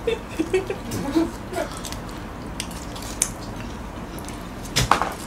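Table sounds during a meal of takeout fried chicken: scattered light clicks and taps of utensils and containers, with faint low voices in the first second and a half and one louder short sound near the end.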